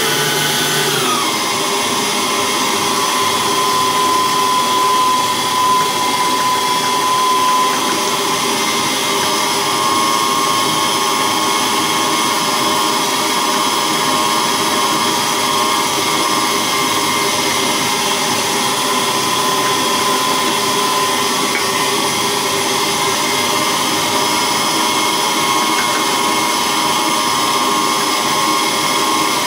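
Electric stand mixer's motor running steadily with a whine, dropping a little in pitch about a second in, as it mixes a yeast bun dough while flour is added.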